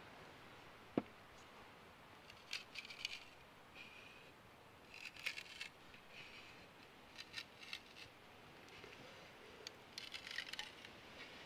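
Faint crackling and ticking of wood fibres tearing as a straight-grained stave is split lengthwise by hand, coming in short clusters every couple of seconds, with one sharp crack about a second in.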